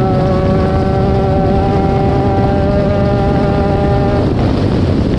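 Off-road race vehicle's engine running at steady high revs over a heavy low rumble. The engine note breaks off about four seconds in as the throttle eases.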